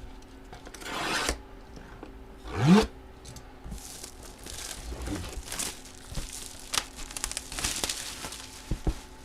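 A trading-card box being opened by hand: rubbing, scraping and tearing of its wrapping and cardboard. There is a short rising squeal near three seconds in, followed by a run of quick rustling strokes.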